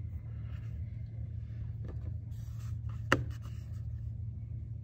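Hands handling a freshly cut slab of clay on a board, peeling away the trimmed excess and lifting the clay disc: soft rubbing and scraping, with one sharp tap about three seconds in. A steady low hum runs underneath.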